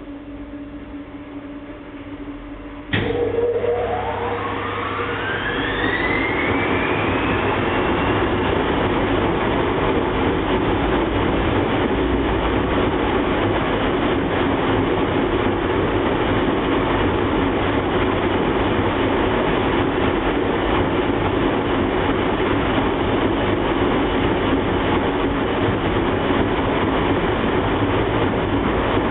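IPSO 181 commercial washing machine going into spin: after a low steady hum, a sharp click about three seconds in, then the motor whine rises steadily in pitch as the drum speeds up, settling into a loud, steady spinning rumble.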